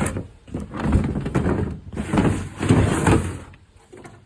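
A storage tote sliding and scraping along a wooden bed platform in two long strokes, stopping about three and a half seconds in.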